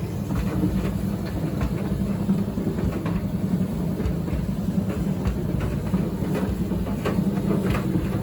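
Hoover tumble dryer's motor switched on, giving a steady low hum with scattered light clicks and rattles. The dryer does not spin, a fault typical of a failed motor start capacitor.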